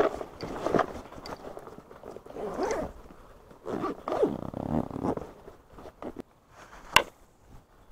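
Zipper on a nylon tactical backpack being pulled shut in several rasping strokes, with the pack's fabric rustling as it is handled. A single sharp click comes near the end.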